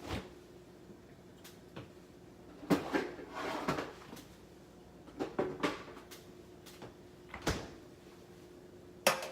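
Knocks and clatters of kitchen cupboards and items being moved and put away, loudest about three seconds in and near the end, over the faint steady hum of the running air fryer toaster oven.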